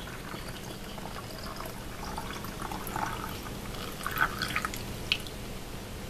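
Salt-water mixture poured from a glass jar through a plastic funnel into a plastic spray bottle, trickling and dripping in short, irregular splashes, with a sharper drip about five seconds in.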